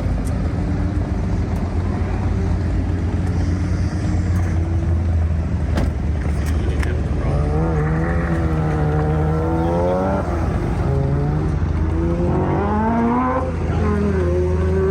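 Car engines at an autocross: a steady low drone, with an engine revving up and back down twice in the second half, the second sweep shorter.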